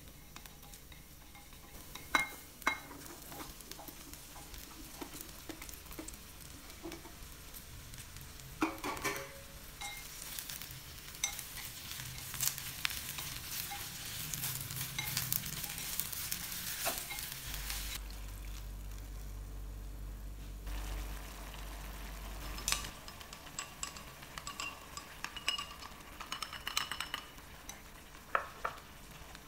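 Garlic and then chopped gourd sizzling in hot oil in a clay pot while being stir-fried with wooden utensils, which knock against the pot now and then. The sizzle swells for several seconds partway through as the gourd cooks.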